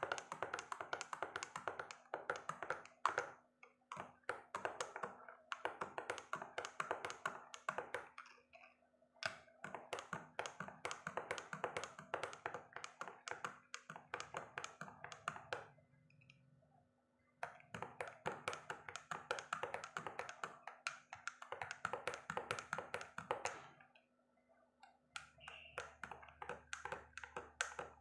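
Spoon clinking rapidly against the inside of a tall drinking glass as a powdered drink is stirred, in runs of several seconds broken by a few short pauses.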